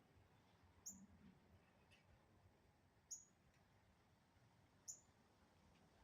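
Near silence broken by faint, short, high-pitched chirps, four of them about every two seconds, each dropping slightly in pitch.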